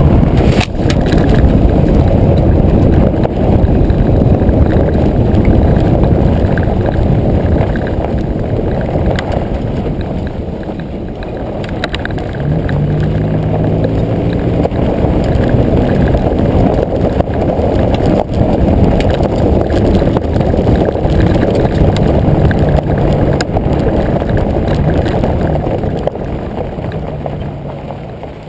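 2005 Nissan Xterra driving off-road, heard from low on the rear bumper: a loud, steady rumble of tyre and wind noise. About halfway through, the engine's low hum comes through and rises in pitch, then holds.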